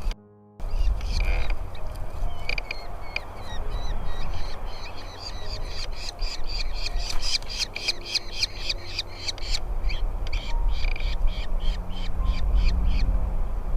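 Falcon chicks calling in the nest while being fed: rapid, repeated short high-pitched begging calls, about four a second at their densest in the middle, over a low rumble.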